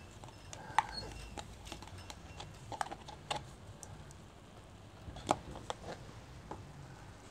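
A spoon scraping and tapping thick sour cream out of a plastic tub: a handful of separate soft clicks and knocks, spaced apart.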